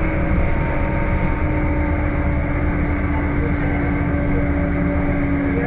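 Scania N280UB compressed-natural-gas city bus under way, heard from inside the passenger cabin: steady low engine and road rumble with a held hum from the drivetrain that drops slightly in pitch.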